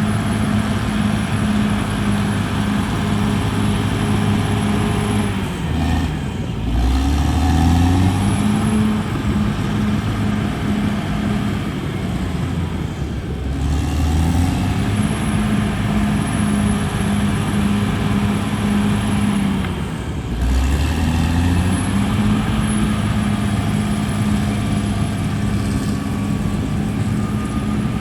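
CAT D6R bulldozer's diesel engine running steadily at working speed, its pitch dropping and climbing back up three times, about seven seconds apart.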